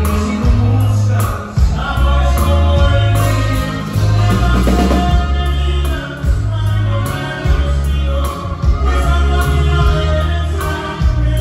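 Norteño band playing live on stage, with a thumping electric bass line, drum kit and guitars, and a voice singing over it.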